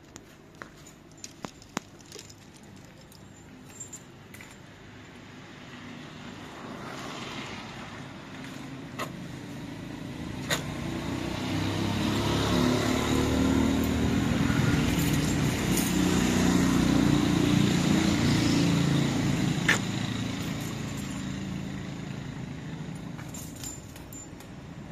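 A motor vehicle's engine running nearby. It slowly grows louder, holds for several seconds in the middle and then fades away. A few light clinks come in the first seconds.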